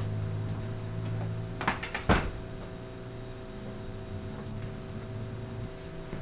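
A glass shop front door being pushed shut: a few light clicks, then a single thud as it closes, about two seconds in. A steady low hum runs underneath.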